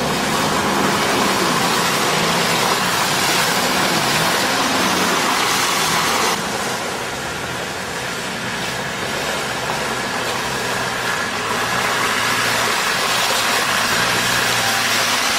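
Off-road vehicle's engine running with its pitch rising and falling, under a steady loud rushing noise.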